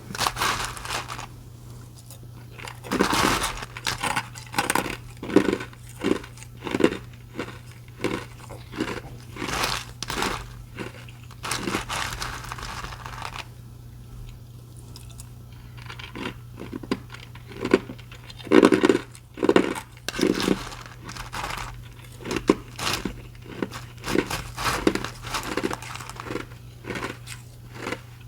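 Ice being crunched and chewed between the teeth close to the microphone: a run of sharp crunches about twice a second, a pause of about two seconds past the middle, then more chewing.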